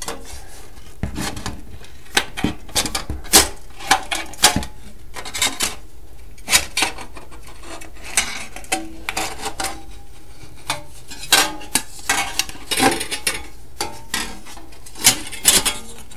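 Thin bendy sheet metal being handled and worked by hand: irregular light clinks, clicks and scrapes of metal, some sharper knocks among them.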